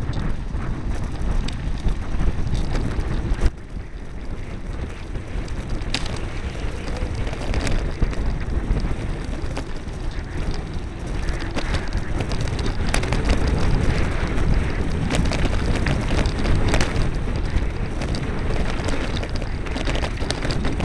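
Wind buffeting the microphone while a mountain bike rolls fast down a rough, rutted dirt track, with steady tyre rumble and frequent sharp knocks and rattles as the bike and camera jolt over bumps.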